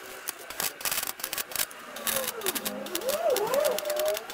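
MIG welding arc crackling and spitting in short, irregular bursts as a steel patch is stitch-welded along its seam into a truck's wing.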